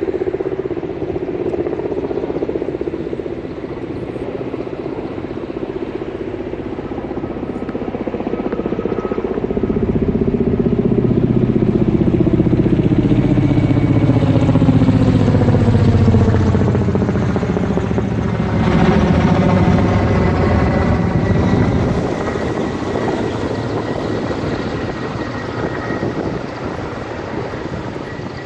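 Firefighting helicopter flying past, its rotor and engine growing louder to a peak over the middle of the stretch. Its pitch slides down as it passes, and then it fades.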